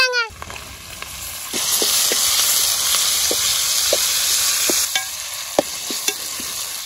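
Ginger-garlic paste frying in hot oil in a pan, sizzling, while a spoon stirs it with scattered scrapes and taps. The sizzle swells loudly about a second and a half in and drops back to a softer hiss near five seconds.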